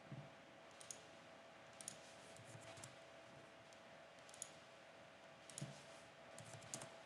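Faint, scattered clicks of a computer mouse and keyboard, a handful of single clicks and short clusters spread over several seconds, over a faint steady hum.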